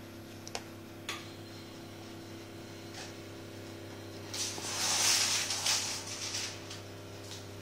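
Coarse jute shopping bag rustling and scraping for about two seconds as a hand handles it, after a few faint taps, over a steady low hum.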